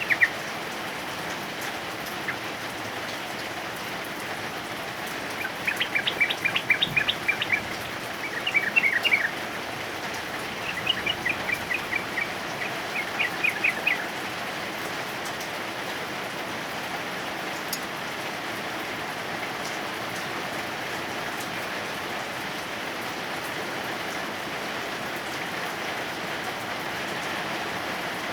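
Steady heavy rain hiss, over which a male yellow-vented bulbul (trucukan) gives four quick bursts of rapid, chattering notes in the first half, then only the rain continues.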